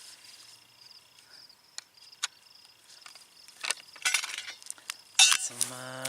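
Sharp metallic clicks and light rattles of a Mossberg 802 Plinkster .22 rifle's detachable magazine being handled and taken out, a few scattered clicks, a small cluster about four seconds in, and a loud snap a little after five seconds. Insects trill faintly and steadily underneath.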